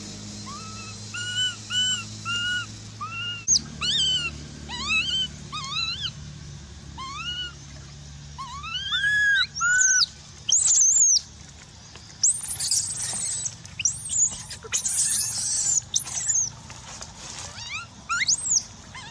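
Baby macaque crying: a string of short, arched whimpering calls, about two a second, that turn into higher, shriller screeching calls in the second half. These are distress cries of a baby being refused the breast during weaning.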